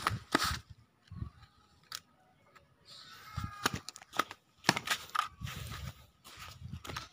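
Irregular clicks, taps and light knocks of hands working with small craft parts, with a few short low thumps.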